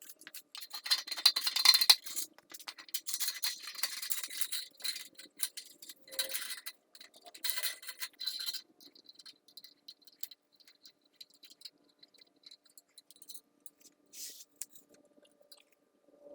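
Hand tools working metal fittings on a motorcycle exhaust as it is tightened down: rapid metallic clicking and scraping in several bursts over the first nine seconds, then only faint scattered clicks.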